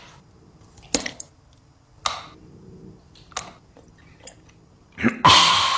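Close-up eating sounds of a novelty "lava" ice cream being bitten and chewed: a few separate short mouth sounds about a second apart, then a louder rushing noise near the end.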